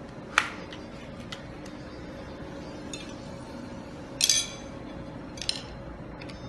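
Baby rocker frame parts being fitted together: white metal tubes and blue plastic joints clicking and clinking against each other. There is a sharp click about half a second in, a few light taps, a ringing cluster of clinks around four seconds in, and another clink a second later.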